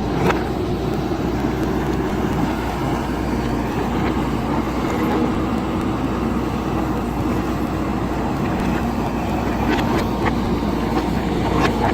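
JCB backhoe loader's diesel engine running steadily under load, with a few sharp clanks near the end.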